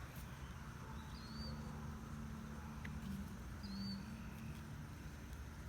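Quiet outdoor background in which a bird chirps faintly twice, each a short high chirp, over a low steady hum.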